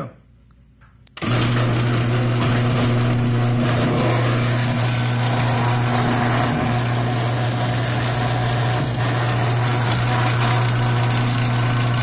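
Overhead garage door opener switched on by a relay: a click about a second in, then the opener's motor starts and runs steadily as it raises the door, a low steady hum over broad mechanical noise.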